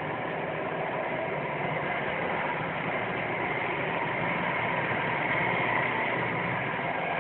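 Steady, unchanging droning hum with faint level tones in it, like an idling bus or truck but not changing. Its source is unidentified: the recorder could not tell whether it came from the sky or the ground.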